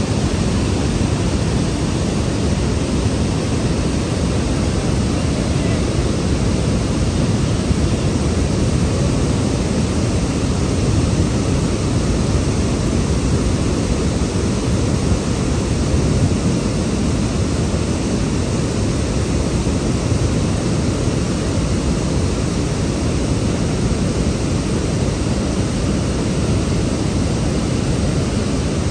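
Water discharging through open dam spillway gates, a steady, deep rush of churning white water.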